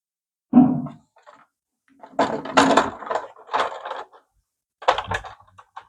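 Replacement plastic key set of a Casio keyboard being handled and set into the opened case: a single knock about half a second in, then a run of irregular plastic clattering and knocking, and a few more knocks near the end.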